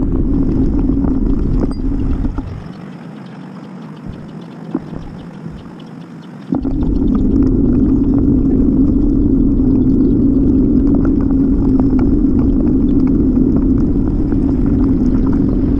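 Steady rumble of a bicycle ride picked up by the camera's microphone, with light rattling clicks from bumps. It falls much quieter for about four seconds shortly after the start, then comes back loud.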